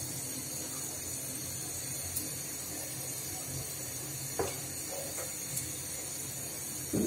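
Soybean oil poured in a thin stream from a plastic bottle into a steel pot on a lit gas burner: a faint steady hiss and trickle, with a small knock about four seconds in.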